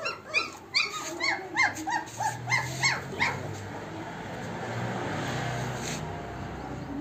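German shepherd puppy whimpering in a quick run of short, high, rise-and-fall whines, about three a second, that stop a little after three seconds in. A steady low noise follows.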